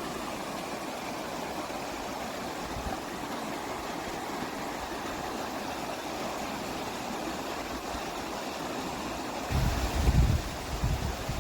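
Steady rush of flowing water. From about two seconds before the end, wind buffets the microphone in loud low gusts.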